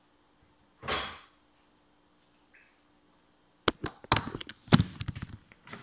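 Handling noise: one short swish about a second in, then a rapid cluster of sharp knocks and clicks near the end as a hand grips and handles the recording phone. No blender is running.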